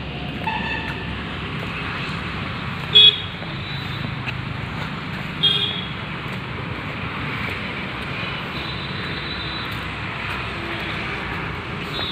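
Steady road-traffic noise with two short vehicle-horn toots, about three seconds in and again about two and a half seconds later; the first toot is the loudest.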